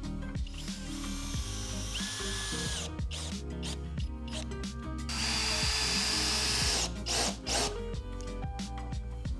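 Cordless power driver running screws with washers up through foil-faced PIR insulation board into the rafters overhead: a short run about two seconds in, a longer, louder run of nearly two seconds past the middle, then two quick blips. Background music plays throughout.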